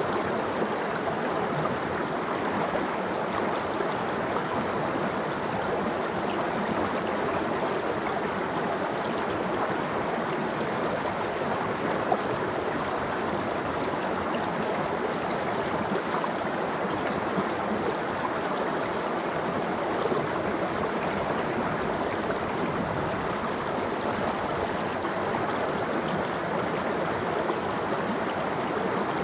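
Valley stream of running water flowing steadily, an even rush with no breaks.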